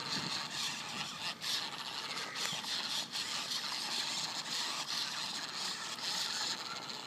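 Radio-controlled car running: a steady rushing, rattling noise with a few sharp clicks.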